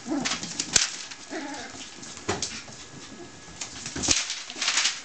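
Seven-week-old puppies playing rough: claws click and skitter on a vinyl floor in quick clusters as they scamper, with a few short puppy vocalisations mixed in.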